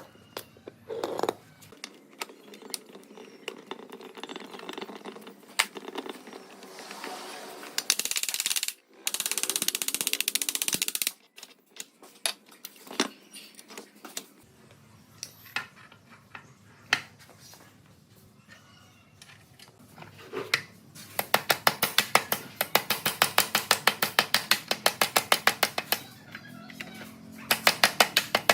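Metalworking sounds: scattered clinks and knocks of metal parts, two bursts of hiss about a third of the way in, then a fast, even hammering of about six strikes a second in the last part, like a power tool working on metal.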